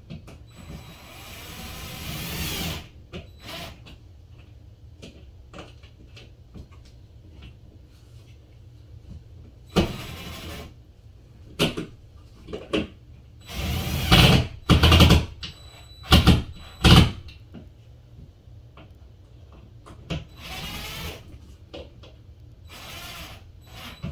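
Cordless drill run in short bursts, about six times, each lasting up to a couple of seconds; the first builds up gradually, and the loudest come a little past the middle.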